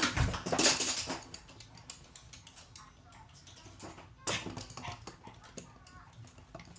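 Toy poodles' claws clicking on wooden flooring as they move about, with a burst of scuffling noise in the first second and a louder knock about four seconds in.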